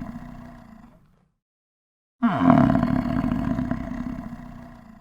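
A large animal's loud roar-like call, heard twice: the first fades away about a second in, then after a gap of silence the same call comes again and fades out near the end.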